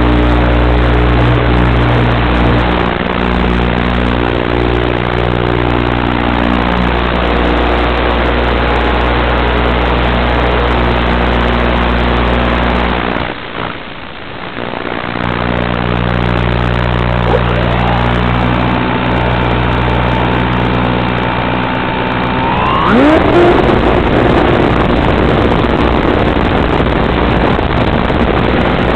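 Onboard audio of a Skywalker FPV plane: a steady electrical buzz of several held tones that dips briefly near the middle. About 23 seconds in, rising whines and a jump in level come as the electric motor throttles up for launch, and the plane then flies with its motor and propeller running.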